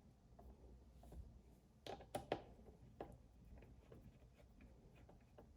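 Faint clicks and taps of small metal parts being handled and fitted on a motherboard. There is a quick cluster of three or four sharper clicks about two seconds in and one more about a second later, over a low room hum.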